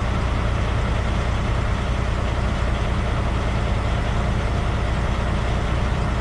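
Semi truck's diesel engine idling steadily, a low even hum.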